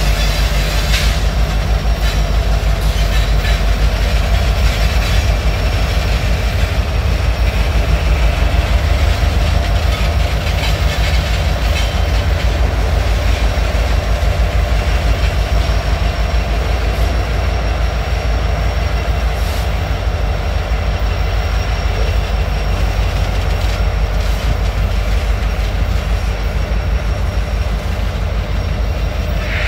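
Union Pacific and Norfolk Southern diesel-electric freight locomotives running steadily as they pass and pull away. Their engines give a continuous low rumble, mixed with the sound of train wheels rolling on the rails.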